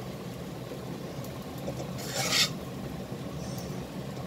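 A metal spatula scraping and rubbing cooked fried rice around a stainless pan while the rice is scooped out, with one louder scrape about two seconds in, over a steady low hum.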